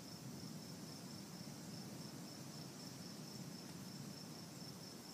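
Crickets chirping steadily in a high, even pulse, about three or four chirps a second, over a low, unsteady rush of wind.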